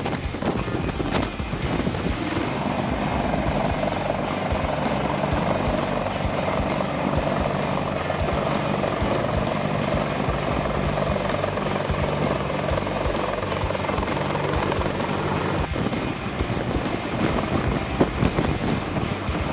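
Sikorsky CH-53 heavy-lift helicopter running, a steady rotor and turbine drone that shifts in tone about 16 seconds in, with music underneath.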